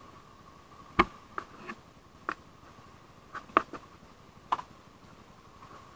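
A handful of sharp clicks and knocks, about eight, scattered between about a second in and the middle, the first one the loudest, over a faint steady high-pitched hum.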